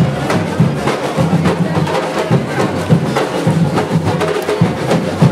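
Batucada drum troupe playing: repeated deep bass-drum beats under a dense, fast clatter of smaller drums and percussion.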